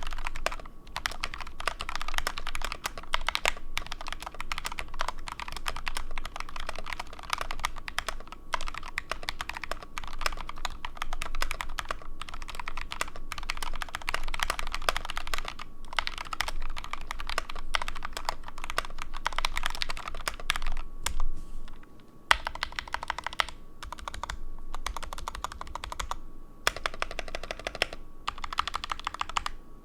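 Fast, continuous typing on a Nuphy TS68 mechanical keyboard fitted with Gateron KS-3 switches lubed with Krytox 205g0 and Osume Dusk keycaps, with a couple of short pauses in the last third.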